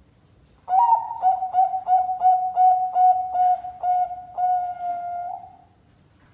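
Bangkok-strain zebra dove (perkutut) cooing: a run of about a dozen short, clipped coos at a steady pitch, about three a second, ending in a longer held note.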